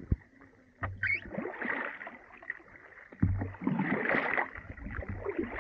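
Kayak paddle strokes in water full of floating brash ice: splashing in two stretches, about a second in and again from about three seconds in, the second one longer.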